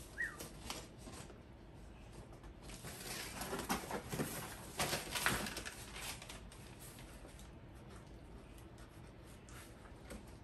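Packaging being handled and opened: scattered rustling and scraping, busiest from about three to six seconds in, with a brief squeak right at the start.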